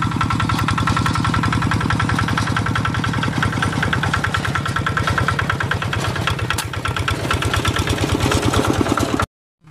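A small engine running steadily at idle, a fast even pulsing that cuts off abruptly near the end.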